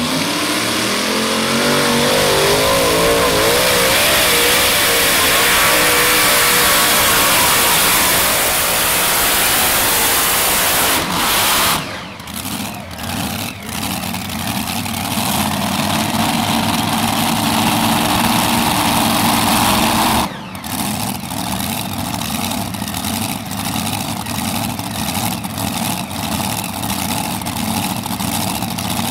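Modified pulling tractor's several supercharged engines running at full throttle down the track, their pitch climbing over the first few seconds. The throttle is cut about twelve seconds in, and after a second sharp drop about twenty seconds in the engines settle to an idle.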